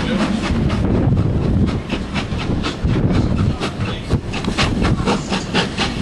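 Train running, heard from on board: a steady low rumble with the wheels clicking over rail joints, a few clicks a second.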